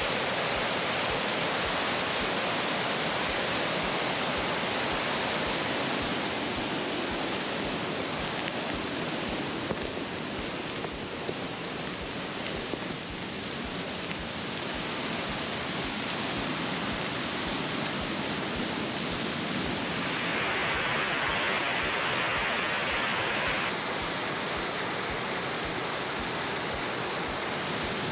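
White water rushing down a forest stream fed by a karst spring, running very high after heavy rain: a steady, full rush, a little softer around the middle.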